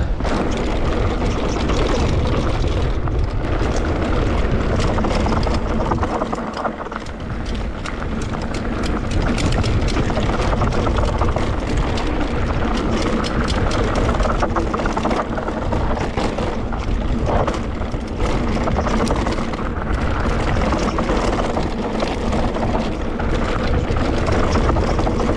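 Wind rushing over the camera microphone and tyres rolling over a dry dirt trail during a fast descent on an electric mountain bike, with the bike's frame and components rattling and knocking over roots and bumps. It eases off a little for a couple of seconds, about six seconds in.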